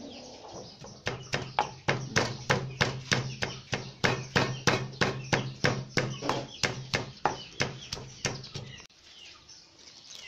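Wooden pestle pounding lime wedges, chilies and garlic in a mortar: a steady run of knocks, about three a second, that stops shortly before the end.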